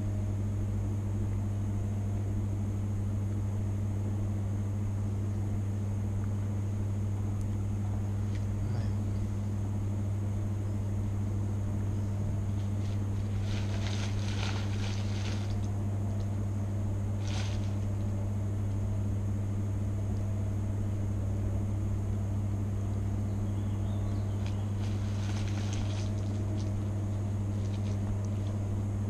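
A steady low hum that never changes in pitch or level, with a few short rustling and handling noises about halfway through and again near the end.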